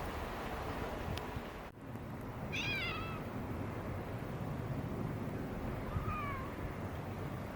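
A cat meows twice: a short meow about two and a half seconds in and a shorter, fainter one about six seconds in, over steady background noise.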